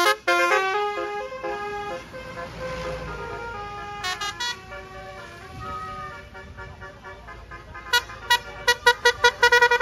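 A bus's telolet Basuri multi-tone musical horn playing a melody of stepping notes that dies away after about two seconds. A brief snatch of tones follows a couple of seconds later, and near the end comes a quick run of short, sharp toots.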